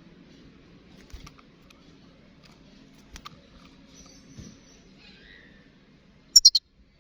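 European goldfinch calling: faint scattered high ticks and thin notes, then a loud quick burst of three sharp high notes near the end.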